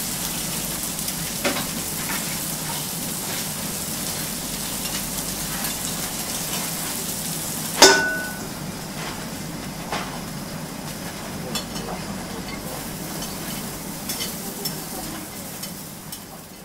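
Food sizzling steadily in oil on a teppanyaki griddle, with scattered small clicks and one sharp clink about eight seconds in. The sizzling fades out near the end.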